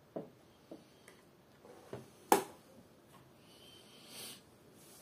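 Small clicks and taps as the embroidery machine's thread catcher assembly is handled and fitted by hand, with one sharp, loud click about two seconds in. A short hiss follows near the end.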